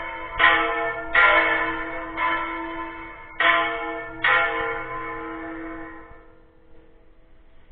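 Smaller church tower bell (campana menor) struck five times at uneven intervals, each stroke ringing on over the last. The ringing then dies away over the last few seconds.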